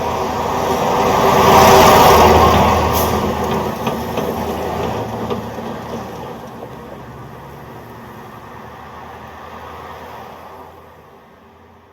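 Road traffic: a vehicle drives past, loudest about two seconds in, and its noise then fades steadily away.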